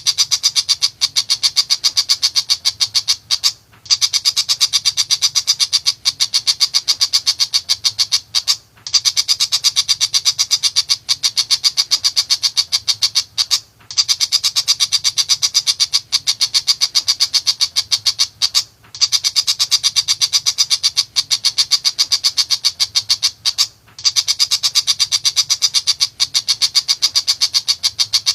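Tiger shrike (pentet macan) giving a fast, harsh chattering call, about ten notes a second, in runs of about five seconds separated by brief pauses.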